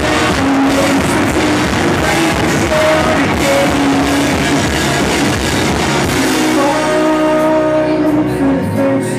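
Live rock band playing, with electric guitars, keyboard, drum kit and singing. About six seconds in the drums drop out, leaving held guitar and keyboard notes ringing.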